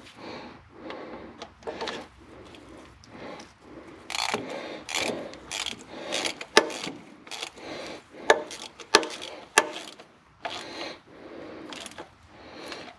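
Ratchet wrench clicking in repeated short strokes, with a few sharper metal clicks, as it runs down the mounting bolts of a fuel transfer pump on a Caterpillar 3406B diesel.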